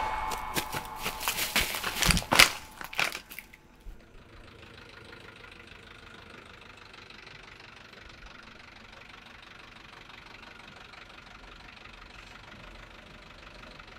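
Quick crackling footsteps and rustling through dry brush for about three seconds, then an old bus's engine idling steadily and quietly.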